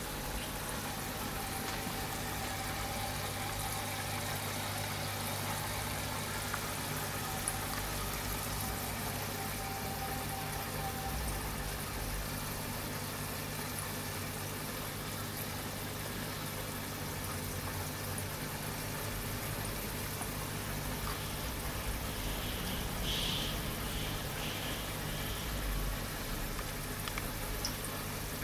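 Aquarium filter running steadily, with water bubbling and splashing at the surface over a constant low hum.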